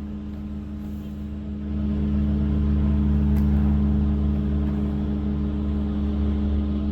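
Steady low-pitched mechanical hum that grows louder about two seconds in and then holds.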